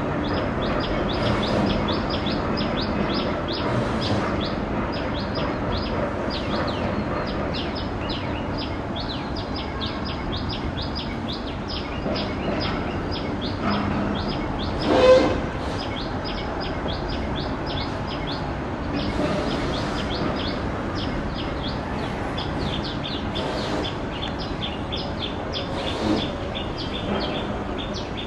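A bird chirping rapidly and steadily, several short high chirps a second, over the low rumble of a distant train that fades away in the first few seconds. A brief louder sound stands out about halfway through.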